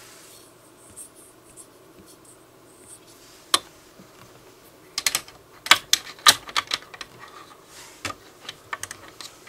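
Typing on a smartphone's on-screen keyboard: sharp, scattered key taps, one about three and a half seconds in, then a quick run of taps and a few more near the end.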